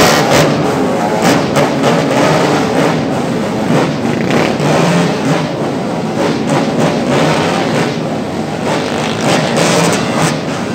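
Many small motorcycles and scooters riding past in a steady stream, their engines running and revving.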